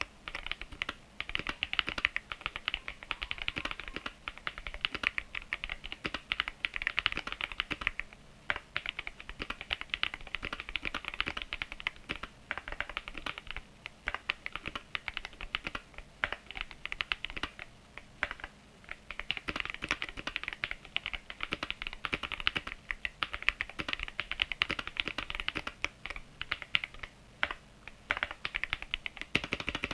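Typing test on a Lemokey P1 Pro mechanical keyboard fitted with pre-lubed Keychron Super Red linear switches: fast, continuous keystrokes with a few short pauses.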